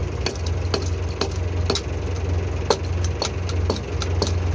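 Heavy steel chain clinking in sharp, irregular clicks as its links are handled, over a tractor engine idling steadily.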